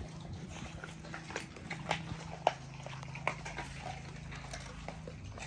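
Pit bulls chewing and crunching raw chicken leg quarters, bone included, with scattered sharp cracks and crunches. A steady low hum runs underneath.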